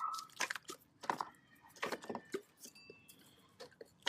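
A few scattered light clicks and rattles of hand work in an engine bay, as wiring and connectors are pulled loose.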